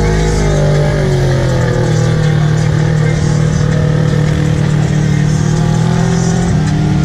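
Polaris side-by-side's engine running under throttle as it drives through muddy water and out onto dirt.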